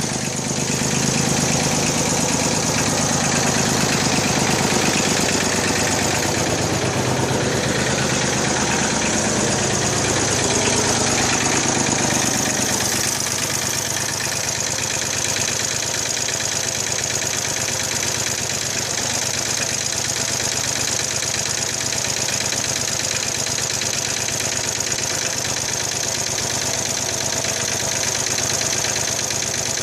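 Small 32 hp farm tractor engine running, fuller and a little louder for about the first twelve seconds, then settling to a steady idle.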